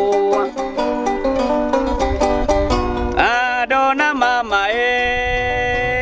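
A sasando gong, the Rote bamboo tube zither with a palm-leaf resonator, plucked in a quick run of ringing notes. About three seconds in, a man's voice joins with a sliding, wavering sung phrase, then holds a long note over the strings.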